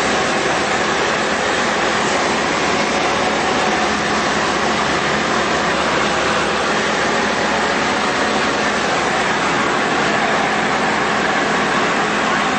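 Steady cabin noise of a Tecnam Sierra light aircraft in cruise flight: its Rotax 912 flat-four engine and propeller running at constant power, mixed with a steady rush of airflow, heard inside the cockpit.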